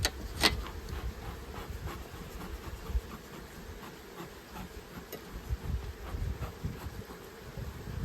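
Honeybees buzzing around an open hive, a steady hum, with a sharp click about half a second in and a low rumble underneath.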